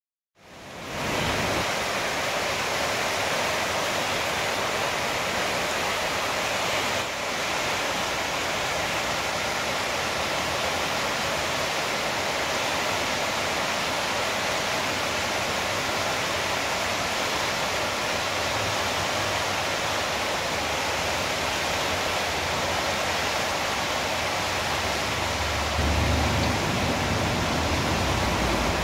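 Floodwater rushing through a concrete river channel: a steady, even roar of fast, turbulent water, with a deeper rumble swelling near the end.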